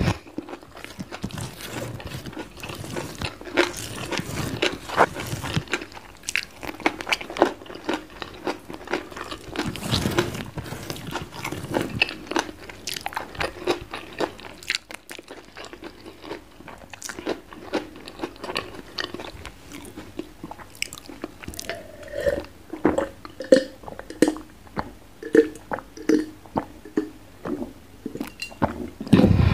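Close-miked crunching, biting and chewing of crunchy food eaten by hand. Over the last several seconds comes a regular run of swallowing gulps as water is drunk from a glass.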